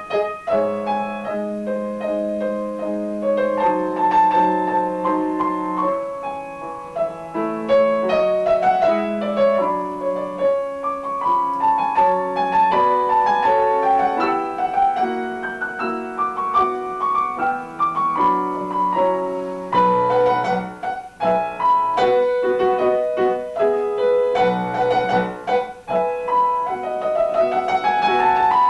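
Solo piano playing a classical piece, a flowing melody over chords, with a rising run near the end.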